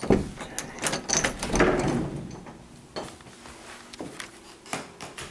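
A door being opened, with knocks, clicks and a scraping rub, then footsteps at the top of wooden basement stairs.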